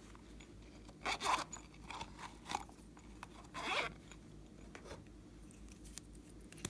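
Hand-made handling noises while making makeup slime: a few short crunching, rasping scrapes with small clicks in between, the loudest about a second in and again near the middle.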